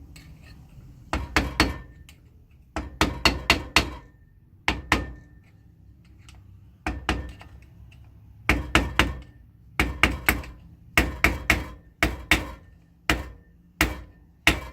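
Hammer blows on metal, in short groups of two to five quick taps with a faint ring, repeated about a dozen times: nut and tab-keeper work on the Kawasaki KV75 minibike engine, driven tight and locked.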